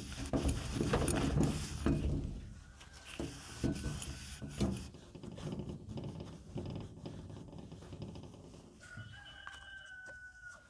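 A rag rubbing hard over a Honda Dio AF18 scooter's transmission pulley, with several knocks and scrapes of metal parts on a steel worktop, then quieter wiping of a shaft.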